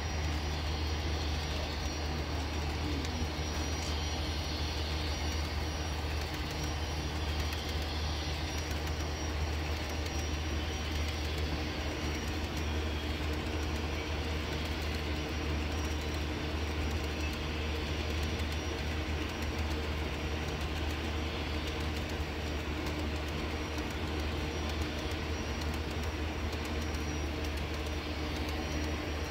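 Model freight train of coal hopper cars rolling along the layout track: a steady running rumble with a constant low hum throughout.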